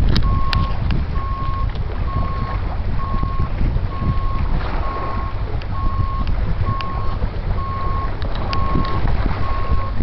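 A vehicle's reversing alarm beeping steadily on one pitch, about three beeps every two seconds, over a low rumble of wind on the microphone.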